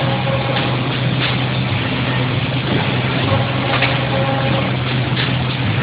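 Case making machine running, with a steady mechanical noise over a constant low hum and a few faint clicks.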